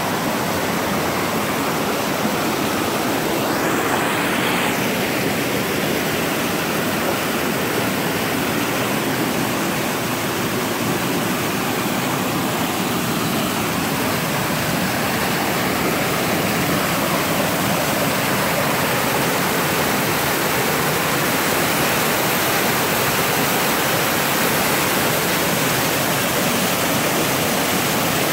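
Waterfall: a steady, loud rush of water pouring down over rock.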